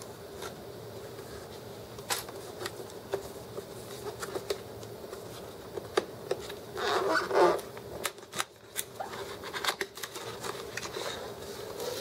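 Fingers picking at and peeling a seal sticker off a cardboard box, heard as scattered light clicks and scratches, with a louder rustle of cardboard and paper about seven seconds in as the box is opened.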